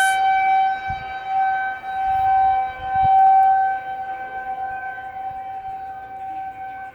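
Outdoor tornado warning siren sounding its monthly test: one steady held tone, swelling and fading about once a second at first, then growing weaker over the last few seconds.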